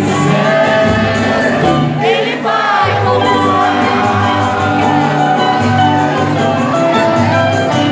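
Music with singing, led by a cavaquinho, the small four-string Brazilian guitar; the bass briefly drops out about two seconds in.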